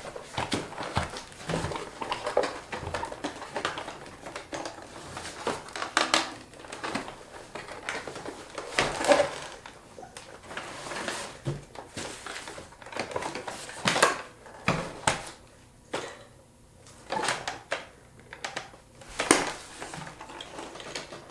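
Hard plastic toy parts of a large Transformers figure clicking, knocking and rattling as they are handled and pried at to get an attached vehicle off. The clicks come irregularly, with a few sharper knocks about 6, 9, 14 and 19 seconds in.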